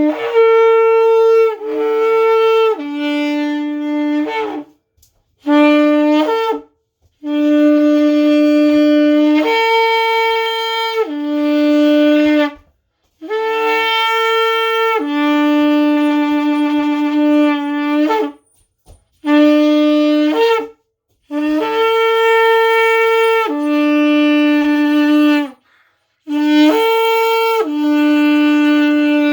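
Kudu horn blown in a series of about seven long blasts, each several seconds long. Each blast steps between a low note and a higher one, with short breaks for breath between the blasts.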